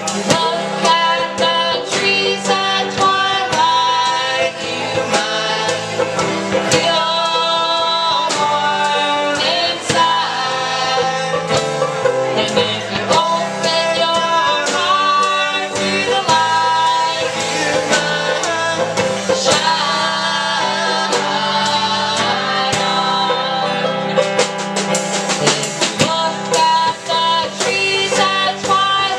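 Folk band playing a song, with plucked string notes throughout.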